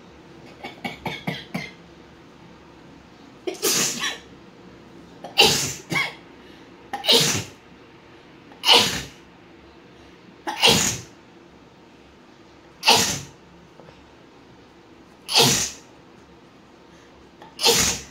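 A woman sneezing over and over: about eight loud sneezes, roughly two seconds apart, after a quick flurry of short sounds near the start. The sneezes are brought on by tickling inside her nostril with a rolled paper strip.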